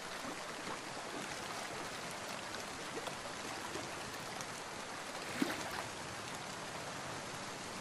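Steady soft rush of river water by the boat's hull, an even hiss with no distinct splashes.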